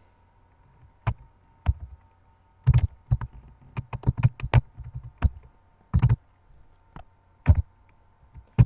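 Computer keyboard keys being typed: irregular single clacks with a quick flurry of keystrokes partway through, as a file name is entered.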